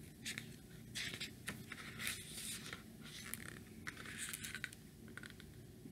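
Pages of a hardcover photo book being opened and handled: a series of soft papery swishes and rustles.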